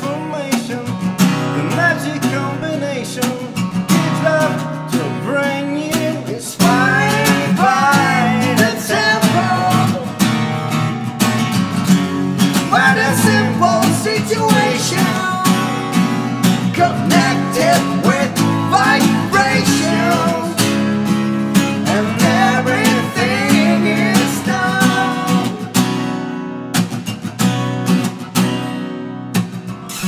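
Two acoustic guitars strummed and picked together under male singing. The voice drops out a few seconds before the end, leaving the guitars alone.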